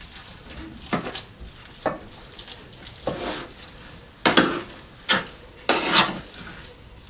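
A big spoon scraping and knocking as a ground turkey and chicken meatloaf mixture is scooped into a loaf pan, in a series of separate strokes about a second apart, the loudest near the end.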